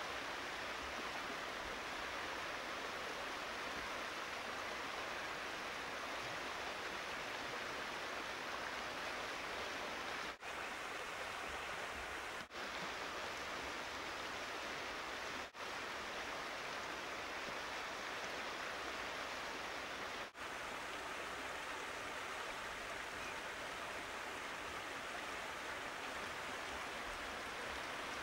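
Steady rushing of a creek, cut for an instant four times.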